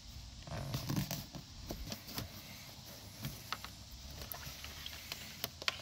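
Hands working the rubber door-sill trim and carpet of a car's door opening: scattered rustles and small plastic-and-rubber clicks as the trim is pulled aside and the carpet folded back, busiest about a second in.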